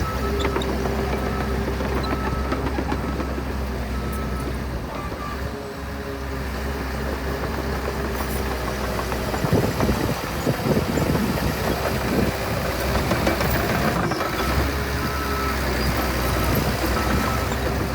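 Heavy earthmoving machine's diesel engine running steadily, with a backup alarm beeping about once a second. Around ten seconds in the machine gets louder and rougher for a few seconds, as if working under load.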